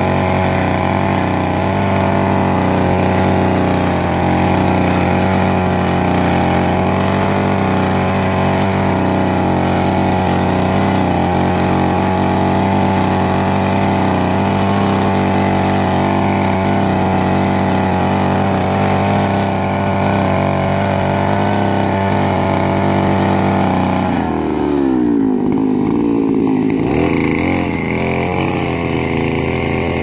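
Small petrol-engined mini tiller running steadily as its tines work the soil between the beds. About 24 seconds in, the engine pitch dips and wavers for a few seconds, then settles.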